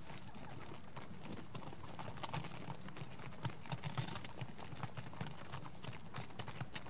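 Wild turkeys pecking at grain on the snow and stepping around close by: quick, irregular clicks and taps that come thicker after about two seconds.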